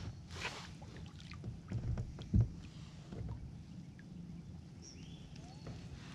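Handling noise of fishing from a kayak: scattered small knocks and rattles of rod, reel and paddle against the kayak, over a steady low hum. A short rushing burst comes right at the start, and a single dull thump about two and a half seconds in is the loudest sound.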